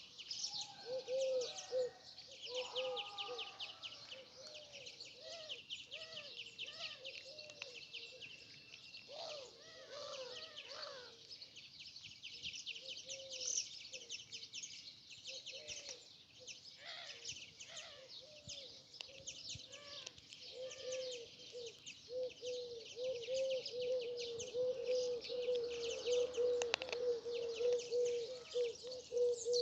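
A chorus of small birds chirping rapidly and without a break, over short, low cooing calls repeated again and again, which come in a steady run in the last third.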